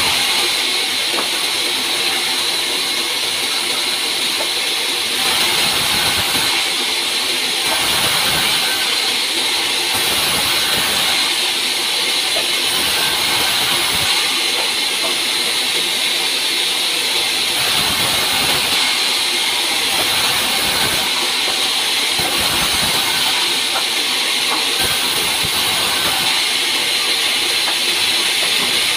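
Large vertical band saw running and ripping wooden boards into beams: a loud, steady hiss, its tone shifting every second or two as each board is fed through the blade.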